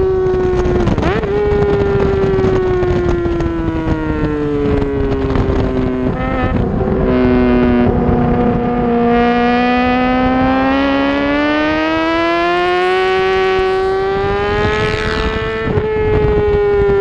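Honda CBR600RR's inline-four engine running at high revs on track. The pitch slides down into a corner and holds low while the bike is leaned over, then climbs steadily as it drives out, with brief breaks about a second in and again around six seconds.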